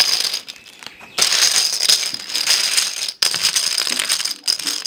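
Small plastic toy domino pieces clattering and rattling together as they are tipped out of a plastic bag and spread by hand over a table. There are two long spells of dense rattling, the first starting about a second in, with a short break between them.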